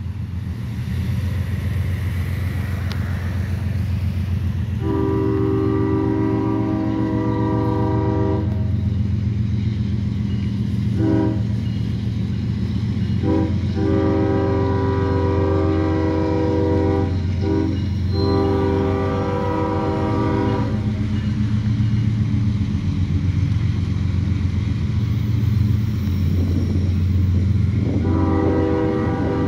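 CSX freight train's diesel locomotive approaching: its air horn sounds a chord in a series of long and short blasts over the steady low rumble of the diesel engines.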